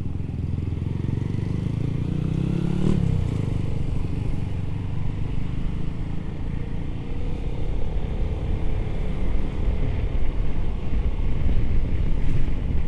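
Motorcycle engine running while riding in traffic, with low road and wind rumble. The engine pitch rises as it accelerates about one to three seconds in, drops sharply, and climbs again more gently later on.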